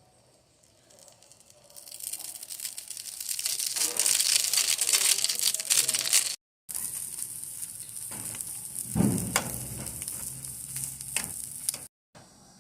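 Omelette frying in a pan: sizzling and crackling that builds up about two seconds in. It cuts out briefly twice, and there is a louder knock about nine seconds in.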